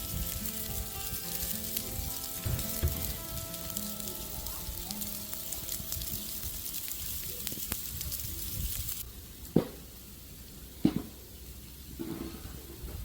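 Soft music with a dense crackling hiss that cuts off abruptly about nine seconds in, followed by two short knocks.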